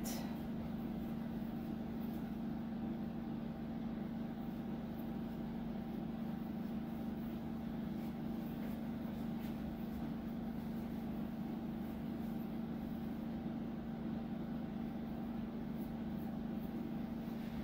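Steady low mechanical hum from a running motor or fan, unchanging throughout.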